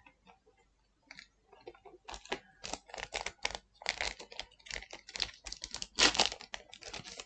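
Trading cards being handled and flicked through: a dense run of quick, crisp clicks that starts about two seconds in.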